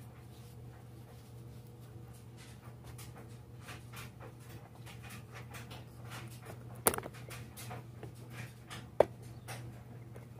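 Faint rustling and scattered light clicks of hands and a cloth working around bare engine parts, with two sharper clicks, one about seven seconds in and one about nine seconds in, over a low steady hum.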